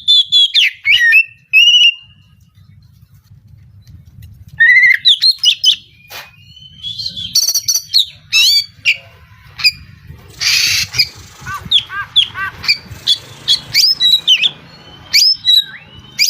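Oriental magpie-robin singing in an excited outburst: rapid runs of varied whistles, chirps and trills with a brief pause about two seconds in, and a harsh rasping call about ten seconds in.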